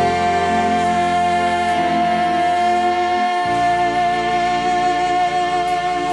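Female lead singer holding one long, steady high note over a pop band's sustained backing chords; the band's chord changes about halfway through.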